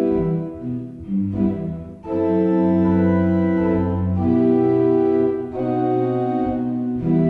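Organ playing slow, sustained chords that change every second or two, briefly quieter about a second in.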